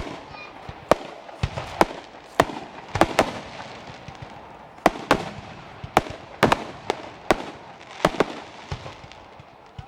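Aerial fireworks bursting: an irregular series of more than a dozen sharp bangs, some coming in quick pairs.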